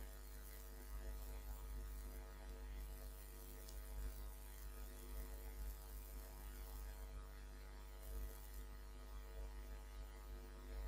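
Faint, steady electrical mains hum with a buzzing stack of overtones, over a light background hiss.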